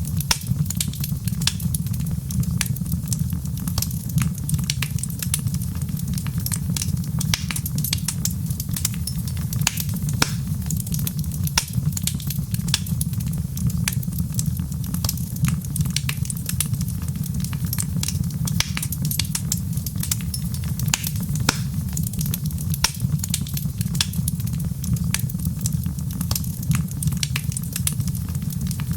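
Fireplace fire crackling steadily: irregular sharp pops and snaps over a constant low rumble of the burning logs.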